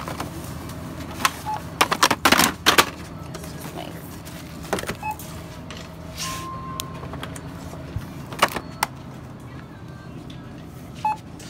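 Checkout register and scanner beeping a few short times, with one longer beep midway, as items are rung up. Bursts of package rustling and clatter come about two seconds in and again past the middle, over a steady store hum.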